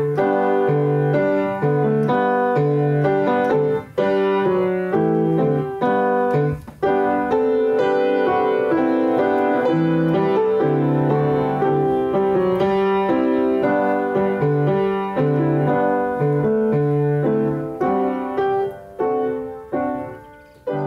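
Piano music, chords with a melody over them, slowing into separate ringing chords near the end.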